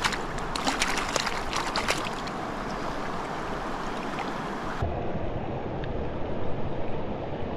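Stream water rushing steadily, with a flurry of sharp clicks in the first two seconds.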